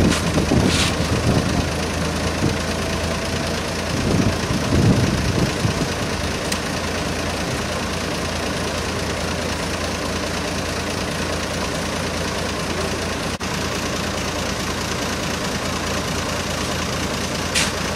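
Diesel engine of a concrete mixer truck running steadily at idle during a slab pour.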